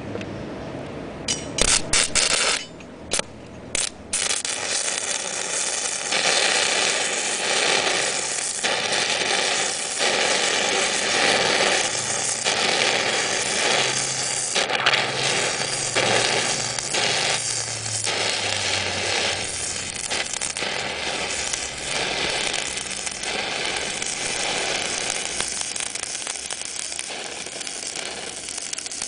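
Stick (MMA) welding arc from an inverter welder, 2.5 mm electrode at 150 A on 3 mm steel angle. A few short stutters as the arc is struck in the first seconds, then a steady crackle from about four seconds in.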